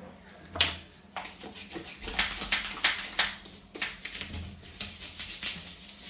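Old toothbrush scrubbing the joint where a glass shower screen meets the shower base, working grime and limescale out of the crack. A couple of scrapes at first, then quick, irregular brushing strokes from about two seconds in.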